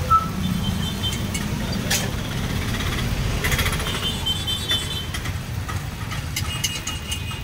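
Steady low rumble of street and stall noise, with a few sharp metal clicks and short high scraping tones from utensils at a dosa griddle.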